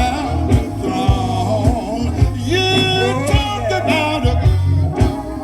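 Live gospel quartet music: a male lead voice sings and holds long notes over bass guitar and a steady drum beat.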